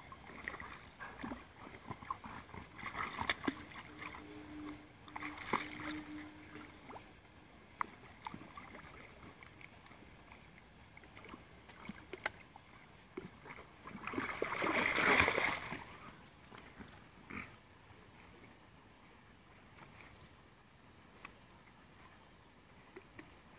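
Dogs swimming and wading in lake water, with intermittent soft splashing and sloshing and a louder burst of splashing about fifteen seconds in.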